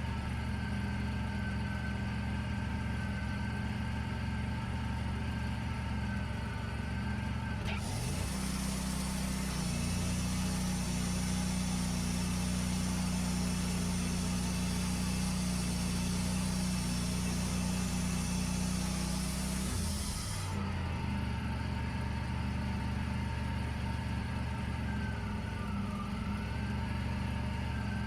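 Wood-Mizer LT40 Wide sawmill's engine running steadily, then about eight seconds in it revs to a higher note with a hiss of the running blade for about twelve seconds before dropping back to its lower steady speed.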